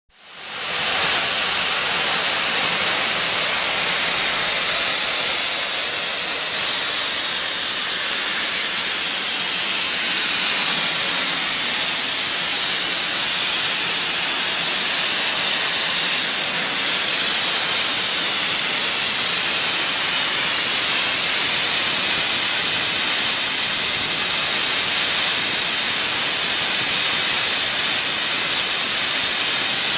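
A steady, loud hiss, strongest in the high range, fading in over the first second and then holding unchanged.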